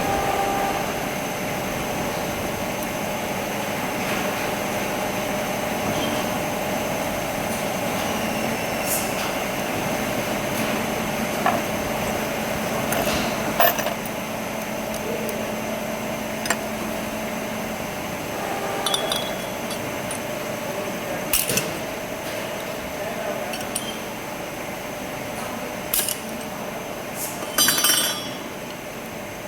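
A few sharp metallic clinks at irregular intervals, with a cluster near the end, over a steady hum.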